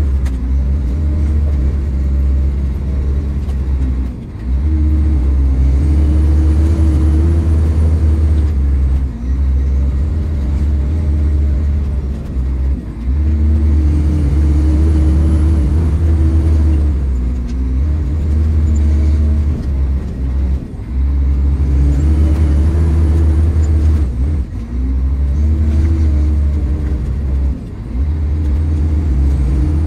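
PistenBully 600 Park snow groomer's diesel engine, heard from inside the cab, running under load as the blade pushes snow. It revs up and drops back three times, about eight seconds apart.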